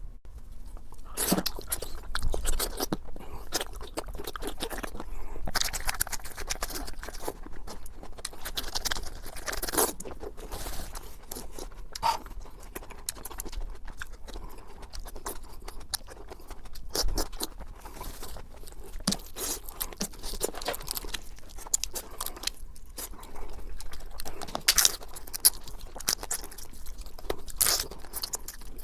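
Close-miked eating: a person chewing and biting into seafood, with irregular wet clicks, crunches and scrapes throughout.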